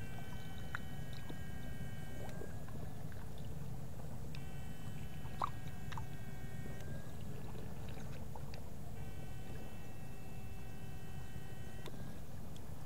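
Water sloshing and splashing as the fishers move forward through the pond. Over it, a high electronic whine from the fish-shocking unit comes on for about two and a half seconds at a time, three times, as it is switched on to stun fish.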